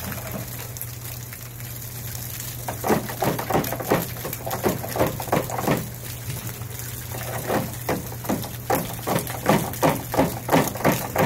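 Water from a garden hose overflowing a rain gutter and pouring down in a steady splashing stream, with irregular splatters growing more frequent after a few seconds.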